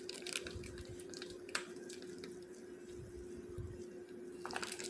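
Thick Honduran cream squeezed from a plastic bag, dropping and squishing into a pan of shredded chicken, with scattered faint clicks.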